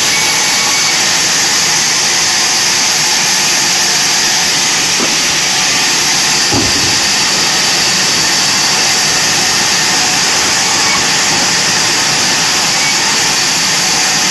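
Large vertical sawmill band saw running with a steady noise as timber is fed through the blade, with a dull knock about six and a half seconds in.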